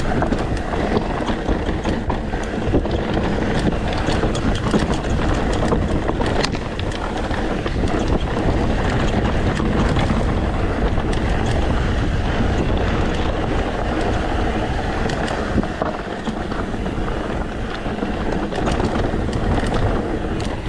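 Wind rushing over the microphone and knobby mountain-bike tyres rolling fast over dirt and rocks, with frequent small rattles and clicks from the bike over the rough trail.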